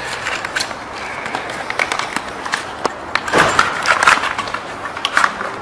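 Plastic wrapping crinkling and rustling as it is handled, in irregular crackles with a louder burst a little past halfway.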